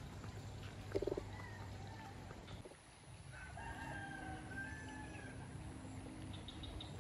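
Roosters crowing faintly over a steady outdoor background, with a short, louder call about a second in.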